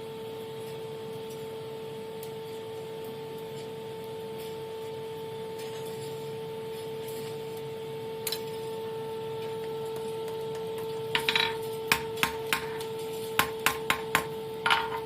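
Blacksmith's hammer tapping steel on the anvil: one lone strike, then about ten quick light blows with a short metallic ring in the last four seconds, over a steady hum.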